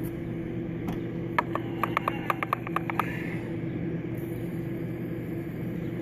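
Hand trigger sprayer squeezed rapidly about ten times in under two seconds, clicking and spraying coil cleaner onto an air conditioner coil, over a steady low mechanical hum.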